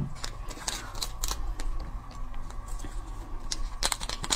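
Small plastic seasoning sachet crinkling and rustling in the fingers as it is pulled open, with scattered sharp clicks and a quicker run of crinkles near the end as the powder is tipped out.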